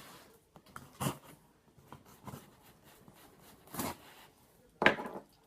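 A parcel being opened by hand: a few short, scattered rips and scrapes of packaging, the sharpest near the end.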